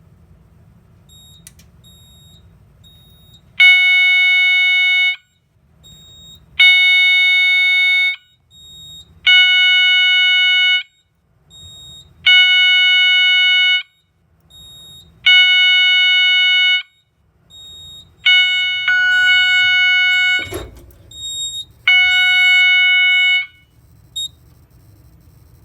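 System Sensor SS-24 horn sounding its 800 Hz tone in march-time code at 20 beats per minute from a Simplex 4008 panel, set off by a smoke detector in alarm on canned test smoke. It gives seven blasts of about a second and a half, each start three seconds apart, beginning about three and a half seconds in. A single thump comes near the end, and the horn then stops.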